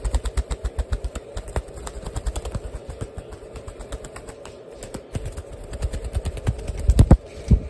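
Cockatiel flapping its wings hard, a fast run of soft thumps from the wingbeats, several a second, with the biggest ones about seven seconds in.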